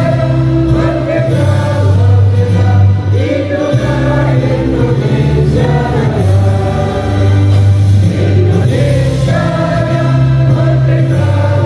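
A group of people singing together in unison along to a musical accompaniment with long held bass notes, at a slow, anthem-like pace.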